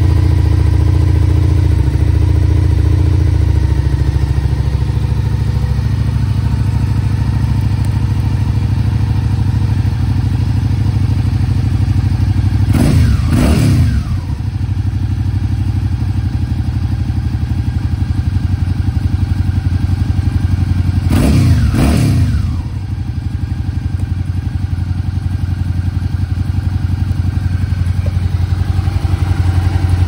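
Suzuki SV650X's V-twin engine idling through a Leo Vince LV One Evo slip-on exhaust with its baffle in. The throttle is blipped twice, about 13 and 22 seconds in, each a quick rev up and back down to idle.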